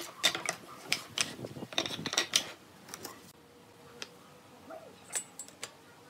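Light knocks and clicks of pine boards and a steel square being handled on a wooden workbench, a quick run of them over the first two and a half seconds, then a few single faint clicks.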